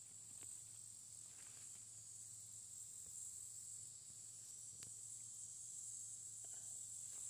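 Faint, steady, high-pitched insect chirring.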